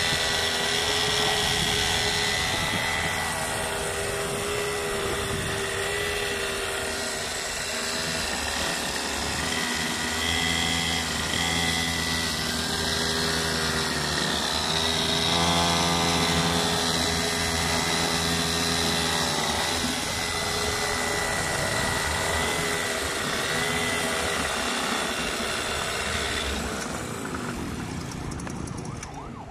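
Small 49cc two-stroke pocket bike engines running while riding, their pitch rising and falling a little with the throttle, fading near the end.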